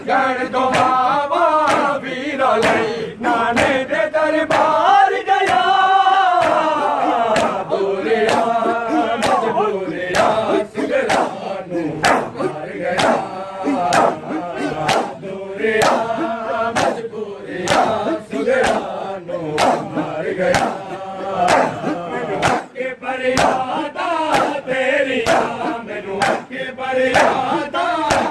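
A crowd of men chanting a Muharram noha in unison, with steady, evenly spaced slaps of hands on bare chests (matam) keeping the beat.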